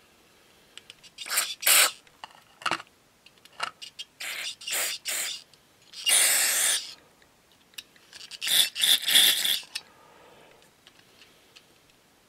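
Aerosol cleaner sprayed through a red extension straw into the passages of a small-engine carburetor, in a series of short hissing bursts, the longest about a second in the middle, to blast out the jets and orifices.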